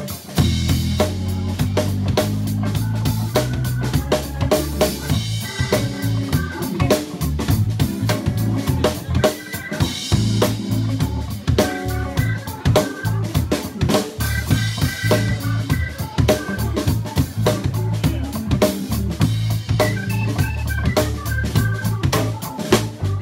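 Live funk jam band playing: a keyboard with an organ sound out front over a close-miked drum kit with cymbals and snare, and electric guitar. The band drops out for a moment right at the start, then comes straight back in.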